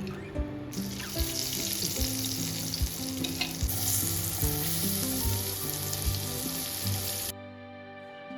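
Food sizzling as it fries in a pan, over background music; the sizzle cuts off abruptly about seven seconds in.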